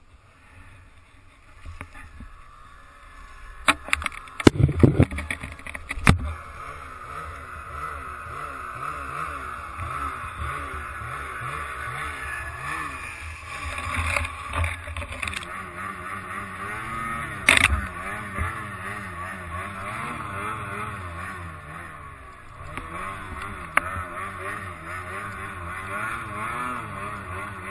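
Snowmobile engine running and revving up and down, its pitch wavering as it pushes through deep powder snow. Several loud knocks about four to six seconds in, and one sharp knock a little past halfway.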